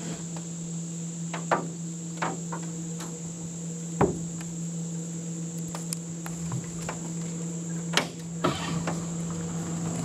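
Insects buzzing steadily with a steady low hum underneath, broken by about five sharp knocks, the loudest about four seconds in and about eight seconds in.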